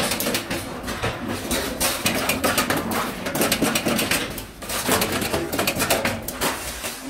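Rocker-arm spot welder firing a quick series of welds on stainless steel sheet, each weld a sharp crackle of spatter, with a brief lull about halfway through.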